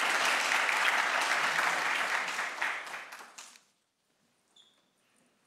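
Audience applauding: dense clapping that thins out and dies away about three and a half seconds in.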